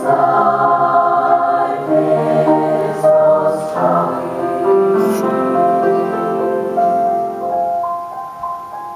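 Chamber choir singing in several parts, holding and moving through sustained chords; near the end the full choral sound falls away to a thinner, quieter line.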